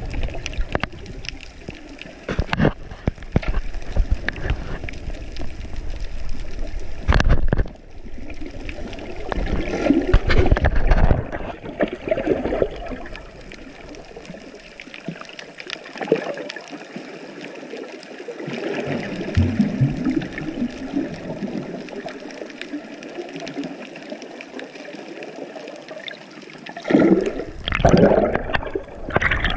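Water sloshing and gurgling as heard underwater through an action camera's waterproof housing, with swells of bubbling as the swimmer moves. A louder rush of water comes near the end as the camera nears the churning surface.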